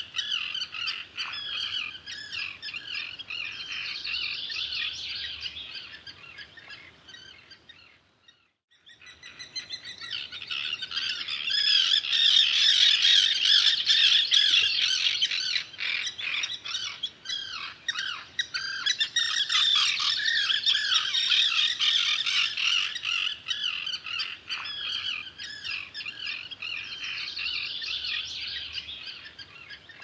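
Common terns calling at a breeding colony: many high calls overlapping. The calling fades almost to nothing about eight seconds in, then builds back up and is loudest a few seconds later.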